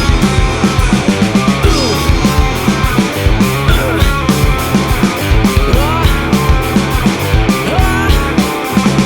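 Rock band playing loudly: two electric guitars, bass and a steady drum beat, with several bent guitar notes.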